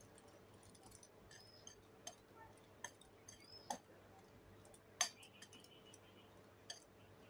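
Metal wire whisk stirring dry flour mix in a glass bowl, its wires clinking lightly against the glass about six times. The loudest clink comes about five seconds in, with a short ring.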